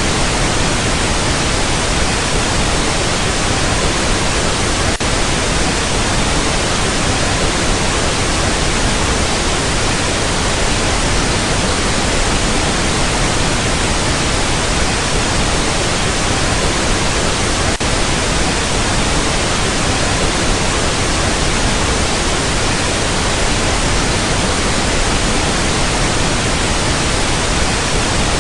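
Loud, steady static hiss, even and unbroken, with no tone or voice in it.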